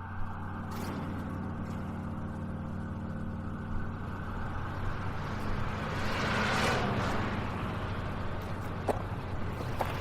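A motor vehicle engine running steadily with a low hum, swelling louder about two-thirds of the way through, with a few sharp clicks near the end.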